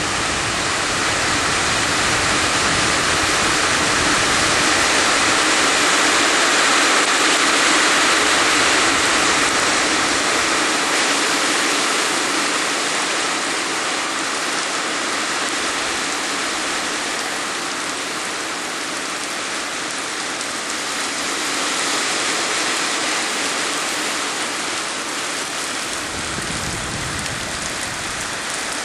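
Heavy tropical downpour pouring steadily as a dense rushing hiss. It eases a little past the middle and surges again right at the end as the rain comes back suddenly.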